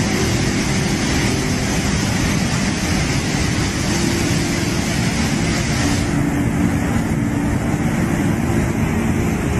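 Steady loud roar of a rushing muddy flash-flood torrent. About six seconds in it turns a little duller, as mud and debris pour down a slope into a river.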